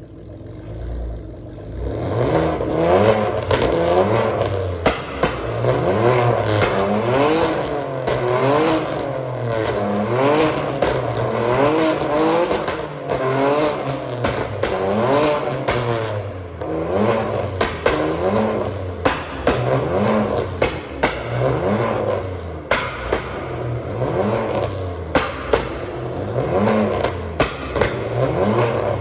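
Straight-piped, catless 2015 Ford Taurus Limited exhaust, tuned for pops and bangs, being revved again and again. Each rev rises and falls in pitch, and sharp pops and crackles go off as the revs drop, coming thickest in the second half.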